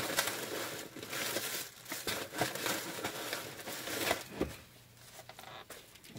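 Paper crinkling and rustling in irregular bursts as sandwich paper is handled, easing off for a couple of seconds near the end.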